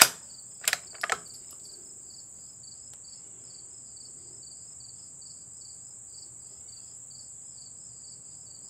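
Crickets and other insects: a steady high buzz with a cricket chirping about three to four times a second. A sharp click at the start and two lighter clicks about a second in.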